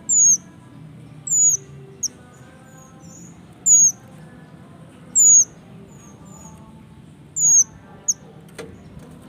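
Male minivet (mantenan) calling: a short, high, thin whistle that swoops down and back up, repeated about every one to two seconds. A single sharp click sounds near the end.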